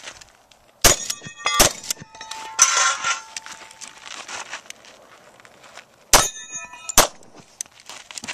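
Two shotgun shots about three-quarters of a second apart, then some four seconds later two pistol shots at about the same spacing. Each shot is followed by the ringing clang of a steel target being hit.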